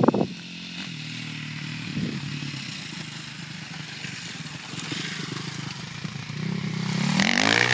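Motocross dirt bike engine running as it comes down a dirt trail, growing louder toward the end, with a short loud burst right at the start.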